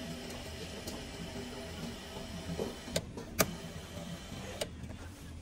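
A steady low machine hum, with sharp clicks about three seconds in, the loudest just after, and another near the end.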